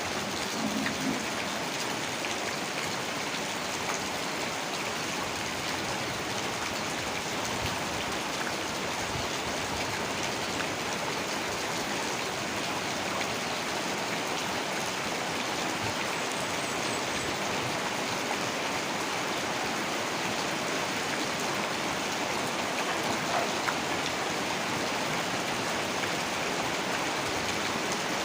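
Heavy rain falling steadily, an even hiss with scattered drops ticking.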